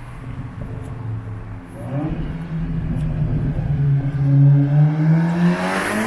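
Seat Leon Cupra 300's turbocharged 2.0-litre four-cylinder, breathing through an aftermarket 3.5-inch E-Exhaust cat-back system, accelerating hard toward the listener. The engine note climbs in pitch and grows steadily louder, reaching a really loud close pass-by at the very end.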